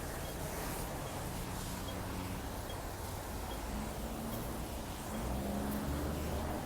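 City street traffic: a steady rumble of vehicles with engines passing by. A faint high beep repeats a little more often than once a second.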